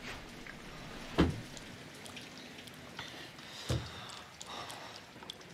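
Two dull thumps, a loud one about a second in and a softer one near the middle, over a steady soft hiss of rain.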